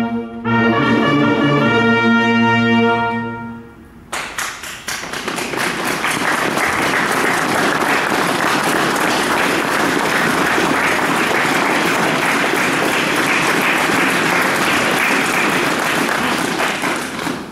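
Military brass fanfare with trumpets holding a final sustained chord that ends about three and a half seconds in. A crowd then breaks into steady applause that lasts through to the end.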